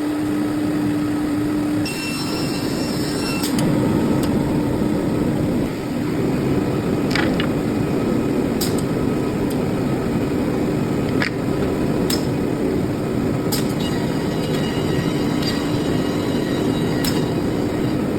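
Edge banding machine running with a loud, steady mechanical noise and a hum, with sharp clicks every few seconds.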